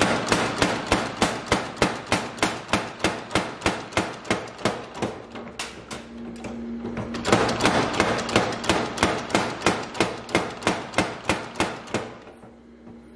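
Massey overhanging 1cwt spring power hammer hot-forging a red-hot steel billhook blank, striking in rapid even blows about four a second. Two runs of blows with a pause of about two seconds between them, when a low steady hum is heard; the blows stop about a second before the end.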